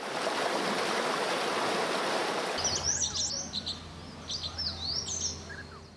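Water of a mountain stream rushing over rocks; about two and a half seconds in it cuts to many small birds chirping over a steady low rumble.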